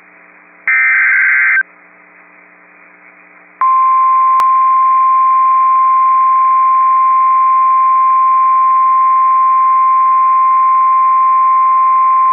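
NOAA Weather Radio alert tones for a flash flood warning. First comes a second-long burst of the SAME digital header data, then a short pause with faint receiver hum. A few seconds in, the steady single-pitch 1050 Hz warning alarm tone starts and holds for about nine seconds.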